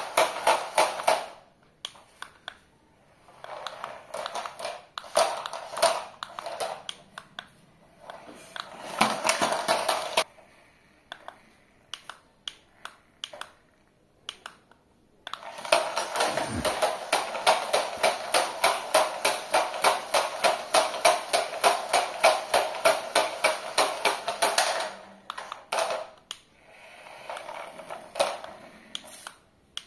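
Toy RC stunt car's electric drive motors and plastic gears whirring with a fast, even rattle, starting and stopping in bursts as it is driven and spun, with one long run near the middle.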